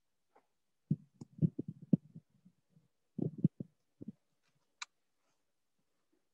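Soft, irregular low thumps and clicks in two short clusters, with one sharper click near the end, heard faintly through the video call.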